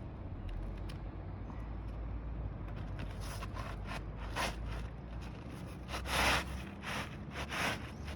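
Asphalt roof shingle scraping as it is slid and worked into place under the course above, in a series of short rasping strokes, the longest about six seconds in, over a steady low rumble.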